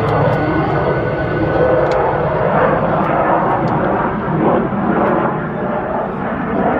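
F-16 Fighting Falcon jet noise: a loud, steady rushing rumble from the fighter's engine as it flies its demonstration.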